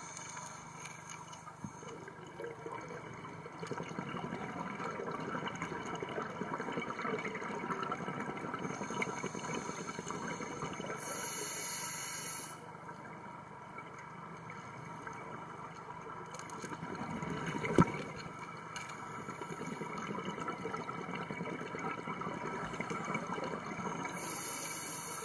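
Underwater rushing and bubbling from scuba divers' exhaled air, swelling and fading in slow breaths. A high hiss comes about eleven seconds in and again near the end, and a single sharp click about eighteen seconds in.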